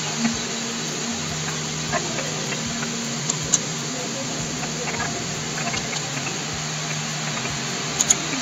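Steady background hiss and low hum picked up by a computer microphone, with a few short sharp computer mouse clicks: one or two about three and a half seconds in and a quick double click near the end.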